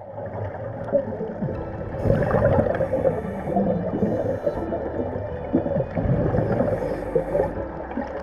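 Underwater sound of a scuba diver: muffled bubbling and gurgling from exhaled air, with a few short hissing bursts.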